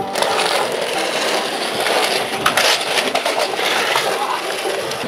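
Skateboard wheels rolling over rough concrete in a DIY bowl, a steady grinding rumble broken by sharp clacks and scrapes of the board and trucks.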